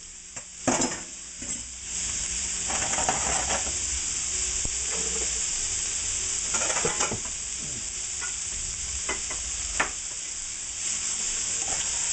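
Shrimp, sugar snap peas and celery sizzling in hot oil in a nonstick skillet, steady and getting louder about two seconds in. A spatula stirs the pan, giving a few short scrapes and knocks.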